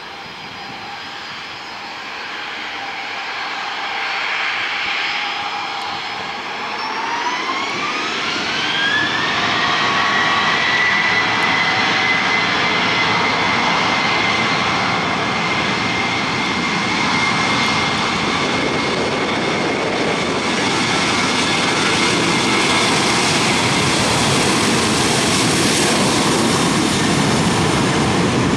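Southwest Boeing 737-800's two CFM56-7B turbofans spooling up to takeoff thrust: a whine rises in pitch a few seconds in and then holds steady over a loud jet roar, which grows louder as the airliner accelerates down the runway on its takeoff roll.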